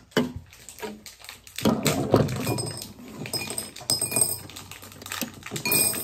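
Irregular clicks, taps and clatter of a screwdriver and hands working on a metal ceiling light fixture as it is being disconnected. Several short metallic pings come in the second half.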